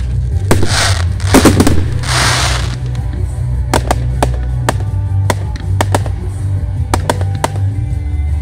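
Aerial fireworks bursting: two hissing, crackling bursts in the first few seconds, then a string of single sharp cracks. Background music with a heavy bass runs underneath.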